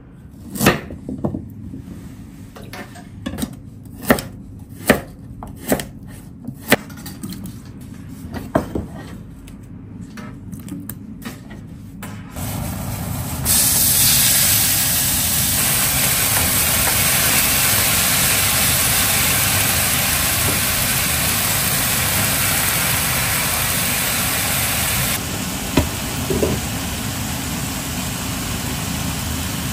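A kitchen knife cutting burdock root on a cutting board: about eight sharp, irregularly spaced chops. Then ground chicken goes into a hot frying pan and sizzles steadily, a little quieter about 25 seconds in, with a spatula knocking the pan a couple of times near the end.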